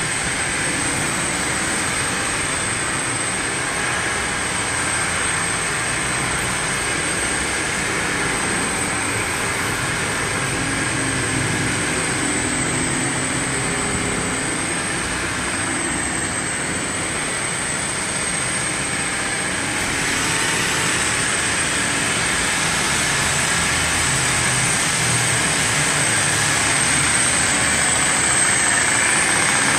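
A machine running steadily: a high whine over a rushing hiss, getting a little louder about twenty seconds in.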